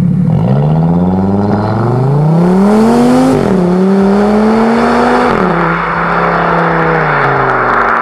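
Audi RS3 8V's turbocharged 2.5-litre five-cylinder engine, breathing through a 3.5-inch valved straight-pipe stainless exhaust, accelerating hard away. The revs climb, drop sharply at an upshift about three and a half seconds in, climb again and drop at a second shift, then hold a lower, slowly falling note as the car draws off.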